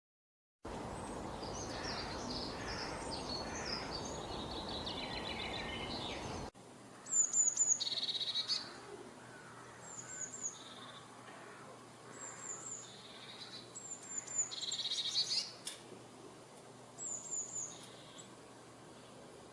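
Birds calling and singing: first a mix of bird notes over a steady rushing background, then, after an abrupt cut about six seconds in, short high chirps in quick groups of two or three, repeated every couple of seconds, with lower trilled notes between them.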